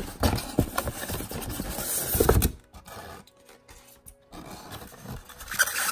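Cardboard model box and its packaging being opened and handled: rustling and scraping with small clicks and knocks for about two and a half seconds, then quieter, with more rustling near the end.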